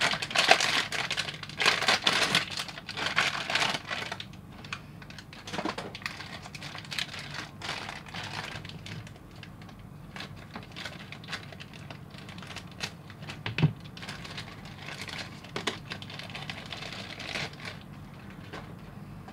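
Plastic packaging crinkling and rustling as a small figurine is unwrapped from a foil blind-box bag and a clear plastic inner bag. Loud crackling for the first few seconds, then quieter rustling with scattered light clicks and one sharper click about two-thirds of the way through.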